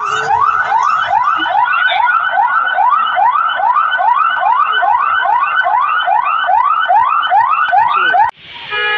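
Emergency vehicle siren in a fast yelp, a rising whoop repeated about two and a half times a second. Near the end it cuts off suddenly and a steady horn blast begins.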